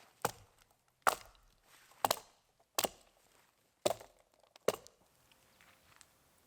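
Wood being chopped: six sharp blows of a blade into wood, roughly one a second, then a pause.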